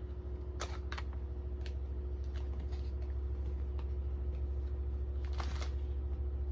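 Scattered light clicks and rustles of a small cardboard box and its packaging being opened and handled by hand, over a steady low hum.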